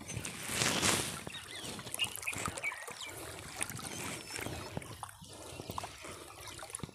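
Water splashing and trickling: a louder splash about a second in, then small drips and splashes.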